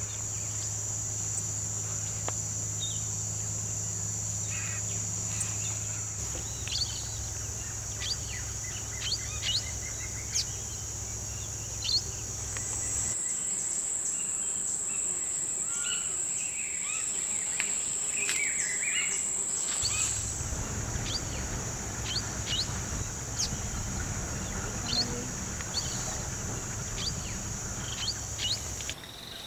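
Tropical forest ambience: a steady, high-pitched insect drone runs throughout, with short bird chirps and calls scattered over it. The drone's pitch steps up slightly partway through and later drops back, and a low hum lies under it for much of the time.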